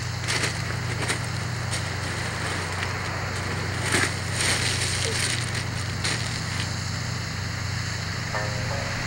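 Beach cobbles crunching and clacking underfoot and under a person's weight as he walks up, crouches and sits down on the stones, over a steady low hum. Near the end a few short plucked notes from a sanshin.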